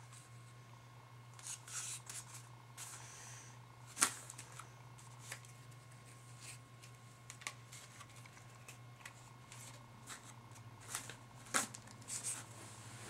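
Paper rustling and light clicks and taps as a rolled-paper double-barrel shotgun is handled and broken open at its hinge and closed again; the sharpest click comes about four seconds in, another near the end.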